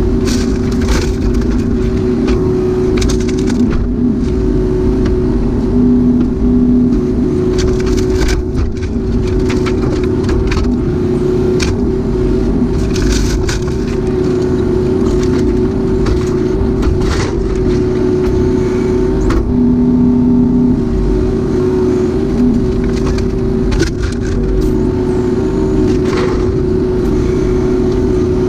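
Kubota U-35-4 mini excavator's diesel engine running steadily under work with a constant whine on top, while scattered knocks and clatter come through again and again.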